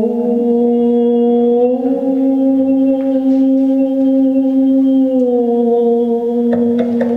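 Music: a slow, sustained organ- or choir-like chord that moves up to a new chord about two seconds in and settles back down about five seconds in, with a few short clicks near the end.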